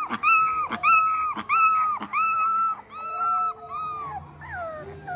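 Dachshund puppy howling: a run of short, high-pitched howls repeating about every two-thirds of a second, each ending in a downward drop. The howls grow weaker near the end, finishing with a lower falling cry.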